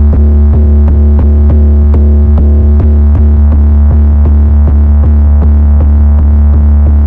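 A distorted 808 bass, synthesised from Logic Pro's stock synths and driven through saturation and distortion, holds one long low note under an electronic beat with regular sharp, clicking drum hits.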